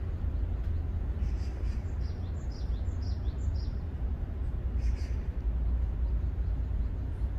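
A small bird gives a quick run of about six short, falling chirps near the middle, over a steady low rumble.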